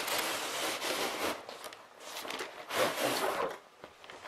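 Nylon tripod bag being pulled out of a cardboard box: fabric scraping and rustling against the cardboard in two stretches, the second loudest a little under three seconds in.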